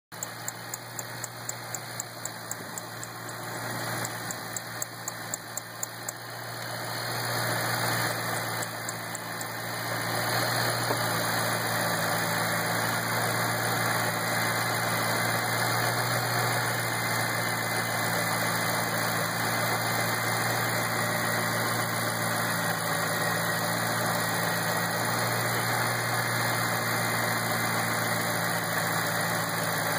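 2008 Shelby GT500's supercharged 5.4-litre V8 idling with a quick, regular ticking, several ticks a second, plainest over the first six seconds; the owner asks whether a bad belt is the cause. From about ten seconds in the engine drone is louder and steadier and the ticks are buried in it.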